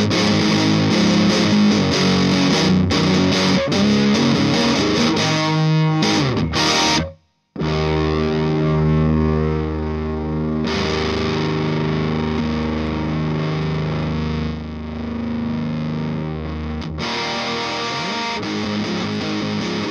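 Electric guitar played through an MXR Fet Driver MOSFET overdrive pedal, distorted; the pedal is working again after its dead power-supply section was repaired. Playing stops briefly about seven seconds in. Then a long ringing chord sounds duller partway through as a knob on the pedal is turned, and new playing starts near the end.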